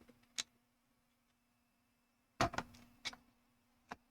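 Plastic building bricks clicking and clattering as they are handled: a single click about half a second in, a louder cluster of clicks around two and a half seconds, then two more single clicks, over a faint steady hum.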